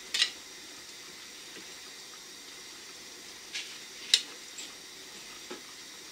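Hands rubbing and tossing damp couscous grains in a wide bowl: a soft gritty rustle with a few sharper bursts, the loudest about four seconds in, over a steady faint hiss. The grains are being worked by hand so that all of the couscous takes up the water evenly before the next steaming.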